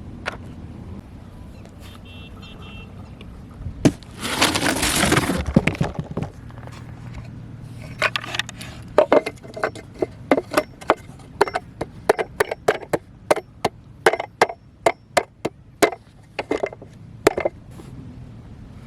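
Hands unboxing and handling a die-cast toy truck: a loud rustle of packaging about four seconds in, then a run of sharp clicks and taps, about two a second, that stops near the end.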